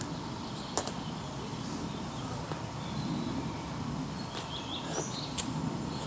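Outdoor forest ambience: a steady background hiss with a few short bird chirps about four to five seconds in, and a couple of sharp clicks or knocks.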